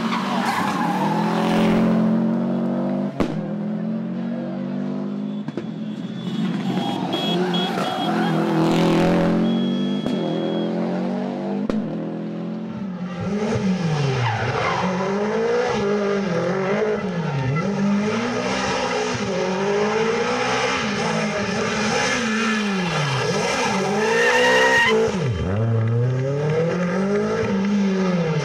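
Rally car engines at full throttle: first a car's engine rising and falling in pitch as it accelerates and shifts, then, about halfway through, an engine revving up and down over and over, roughly every second and a half, with tyres squealing as the car slides.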